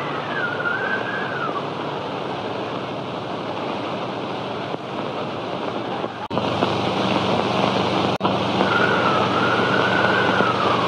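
Heavy hiss of a worn early sound-film soundtrack, with a thin wavering whistle-like tone gliding up and down at the start and again near the end. A sharp click comes about six seconds in, where the picture cuts, and a low hum joins after it. Another click follows about two seconds later.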